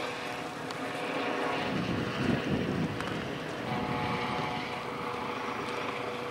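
Electric mobility scooters running along a path, their motors giving a steady whine over tyre and path noise, with a brief low rumble about two seconds in.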